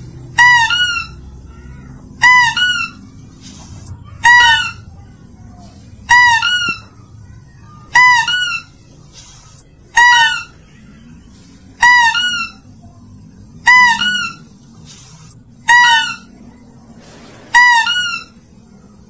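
Mouse-deer (kancil) lure call played on a loop: a short two-note chirping call, the second note higher than the first, repeated at an even pace about every two seconds, ten times over a low background hum.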